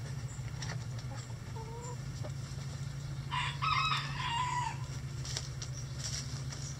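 Bantam rooster crowing once, a single crow of just over a second about halfway through, with soft hen clucks a little before it.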